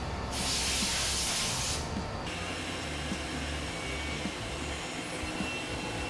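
Steady hum of CNC machining machinery, with a burst of compressed air hissing for about two seconds, starting half a second in.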